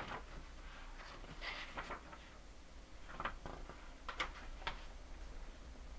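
Faint handling sounds of a hardcover picture book being opened: a few soft taps and paper rustles, scattered and irregular.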